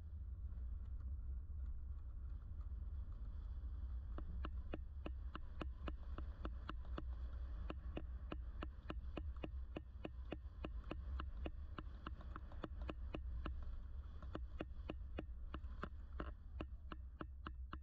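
Car driving, its low road and engine rumble picked up through the passenger-side window by a suction-mounted camera, with a rapid, regular ticking of about four clicks a second that becomes clearer about four seconds in.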